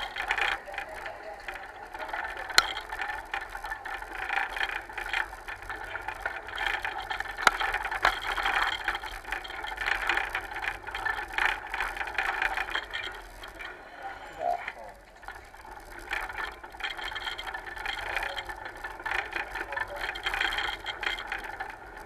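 Continuous rattling and road noise of a ride, picked up by an action camera, with scattered sharp clicks and knocks.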